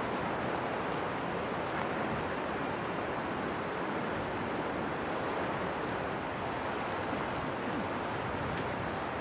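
Steady rushing noise of wind and moving river water, with no distinct engine sound standing out.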